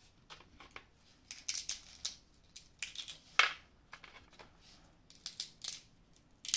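Roasted chestnut shells crackling and snapping as they are peeled apart by hand, a string of irregular crisp crunches and clicks, the loudest about three and a half seconds in.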